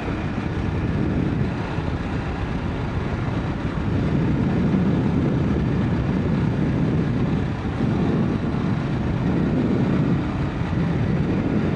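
Dual-sport motorcycle under way: engine running steadily under wind rush on the rider's microphone, a little louder from about four seconds in.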